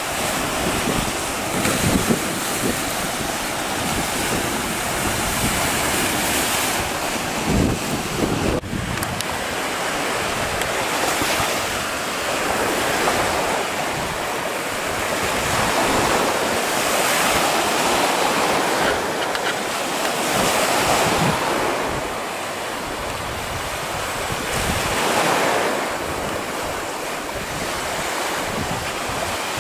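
Sea waves breaking and washing around rocks onto a sandy shore, the surf swelling and easing every few seconds. Wind buffets the microphone with low rumbles.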